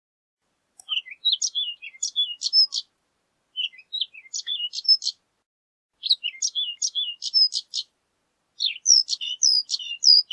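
Horned lark singing: four tinkling phrases of quick, high chirps and short rising and falling notes, each phrase lasting under two seconds with short pauses between.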